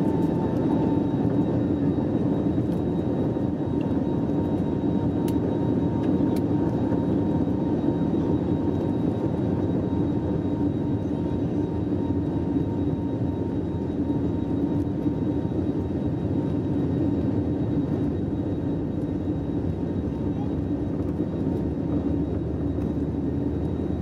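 Cabin noise of an Airbus A320neo taxiing: a steady engine hum with a fainter steady whine above it.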